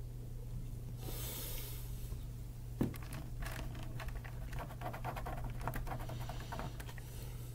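A soft breath out after a swig from a drink can, then a single knock and a run of small clicks and handling sounds, over a steady low electrical hum.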